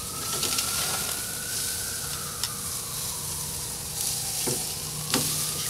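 Steaks and shrimp skewers sizzling on a grill grate over glowing coals, with a few sharp clicks of tongs against the grate.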